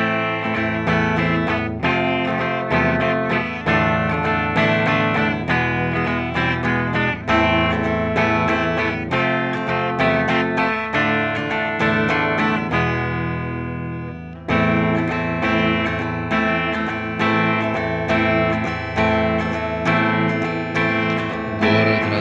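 Ibanez electric guitar playing the song's instrumental intro, picked chords in a steady rhythm. A little past halfway a chord is left to ring and fade for about two seconds, then the playing resumes.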